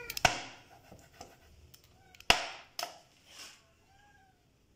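Kitchen knife chopping raw chicken wings on a wooden cutting board: two sharp chops about two seconds apart, the second followed by a lighter knock. Faint short cat meows come in between, and a falling meow trails off right at the start.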